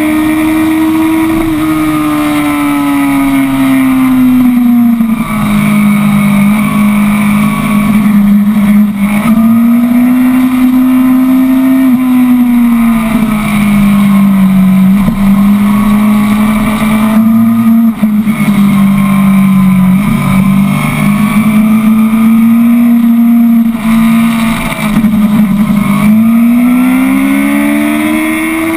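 Sport motorcycle engine at speed, heard from the rider's position on the bike. The engine note climbs and drops several times as the rider opens and closes the throttle through corners, with a steady rush of wind.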